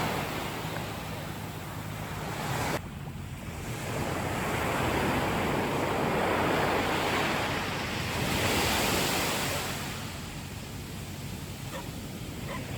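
Ocean surf washing in, a broad rush of waves that swells and recedes, loudest in the middle, with wind buffeting the microphone.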